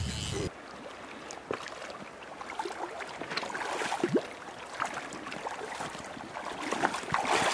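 Shallow river water lapping and splashing around a hooked salmon being brought in at the bank, with small scattered splashes that grow louder near the end.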